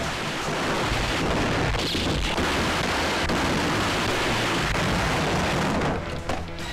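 Film-soundtrack explosions: a loud, continuous blast-and-debris rumble with no distinct single shots, easing off about six seconds in.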